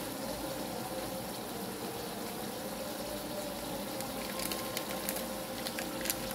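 Mutton and tomatoes cooking in a pressure-cooker pot on a gas burner: a steady low sound of the meat and tomato juices simmering. A few light clicks come in the last two seconds.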